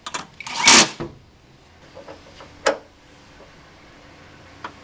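Brief burst of a cordless drill driving a bonnet-strut bracket bolt, about half a second long and starting about half a second in. A single sharp click follows a couple of seconds later.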